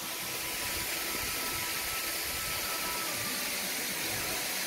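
Hongryong Falls waterfall pouring into its plunge pool: a steady, even rush of falling water with no change in level.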